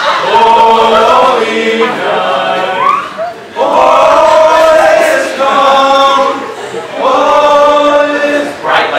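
Several voices singing together in long held notes, choir-like, in about five phrases of a second or two each with short breaks between them.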